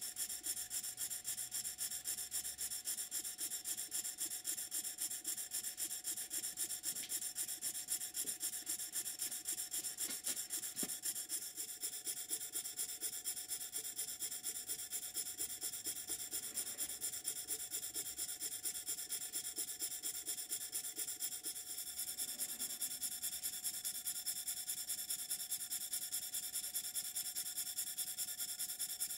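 Stuart Models 10V model steam engine running steadily on compressed air, with its valve timing freshly set. It makes an even, rapid train of hissing exhaust puffs.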